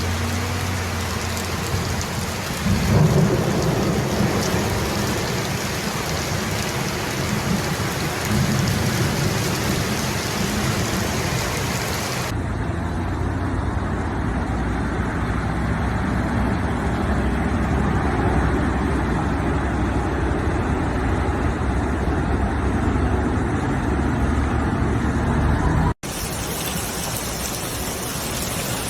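Heavy rain and rushing water: a steady, dense noise over a low rumble. The sound changes abruptly about 12 seconds in, and again after a brief dropout near 26 seconds.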